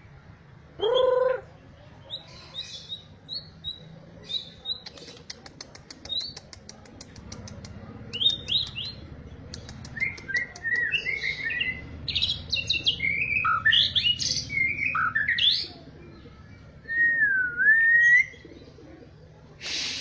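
White-rumped shama singing: a varied run of clear whistled notes and glides, sharp chips and a fast ticking trill, with a long whistle near the end that dips and rises again.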